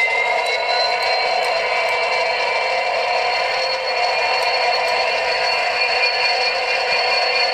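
Hornby Class 66 model diesel locomotive running slowly: a steady, thin hum of several held tones with no bass, its pitch rising slightly in the first second.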